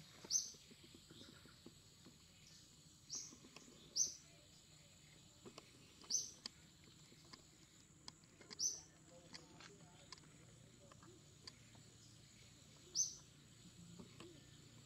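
A bird giving short, high chirps, six in all, spaced a few seconds apart, each dropping slightly in pitch, over a faint steady high whine.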